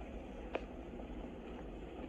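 Steady low outdoor background rumble with one short click about half a second in.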